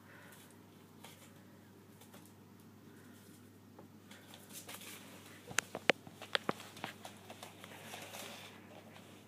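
Puppy scrambling and pawing on sheets of newspaper laid over a wooden floor: the paper rustles and crinkles under its feet. About halfway through comes a quick run of five or six sharp clicks and taps.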